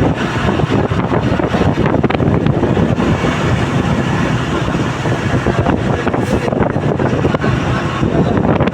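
Loud, steady wind rushing over the microphone, mixed with the rumble of a vehicle moving at road speed.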